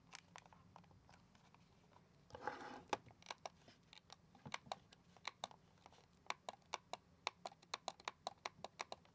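Logitech MX Master 3S mouse buttons being clicked again and again: sharp, loud clicks, a few a second, coming thicker from about three seconds in, after a brief scrape as the mouse is set down. The repaired buttons now use makeshift 6 x 6 mm tactile switches soldered in, not real mouse switches, so the presses are really, really loud.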